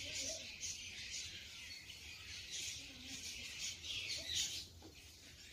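Faint high-pitched chirping and hiss that swells and fades in short bursts, brightest a little after the four-second mark.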